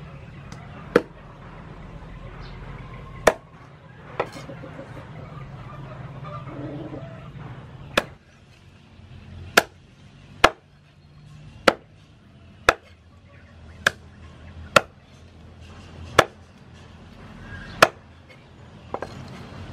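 Meat cleaver chopping raw chicken on a thick round wooden chopping board: about thirteen single sharp strikes, unevenly spaced, with a pause of a few seconds early on and then roughly one strike a second.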